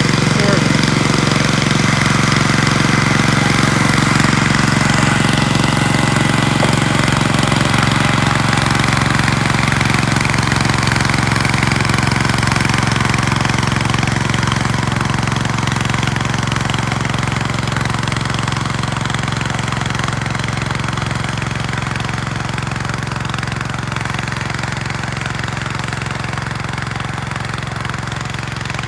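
Engine of a Gravely 430 walk-behind tractor running steadily, growing slightly quieter towards the end.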